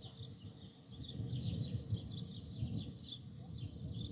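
Small birds chirping in quick, repeated short falling notes, over a low, uneven rumble that grows louder about a second in.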